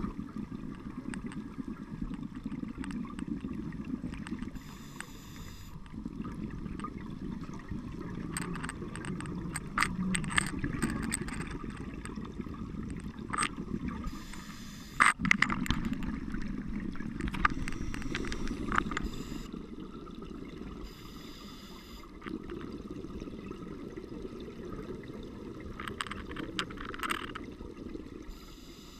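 Muffled underwater sound picked up through a camera housing on a scuba dive: a steady low rumble of water with scattered sharp clicks. Now and then there is a short hissing, gurgling burst of bubbles from a diver's regulator exhaust as they breathe out.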